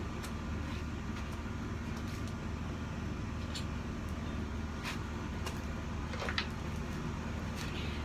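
Steady low mechanical hum, like a motor or compressor running, with a few light clicks and knocks about five and six seconds in.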